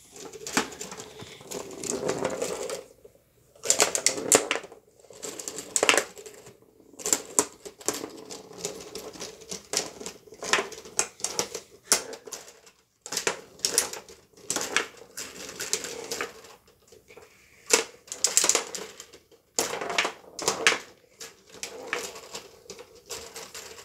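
Small tabletop foosball table in fast play: the ball and the plastic players clack, and the rods rattle in irregular runs of sharp clicks and knocks.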